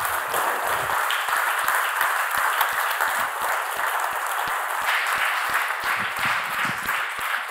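Audience applauding: many people clapping together, steady and dense.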